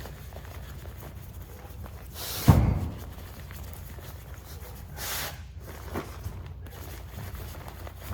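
Inflatable sleeping pad being rolled up and pressed to squeeze out its air: rustling of the pad's fabric in short rushes, with one heavy thump about two and a half seconds in.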